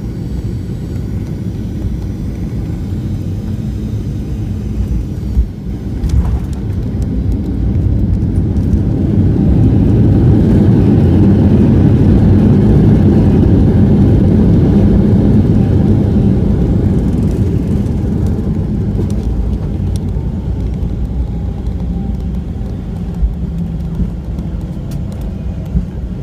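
Cabin sound of a Boeing 737-700 landing: a steady low rumble of engines and airflow, with a thump about five seconds in. The CFM56 engines then swell into a loud roar of reverse thrust and braking, which eases off as the jet slows on the runway.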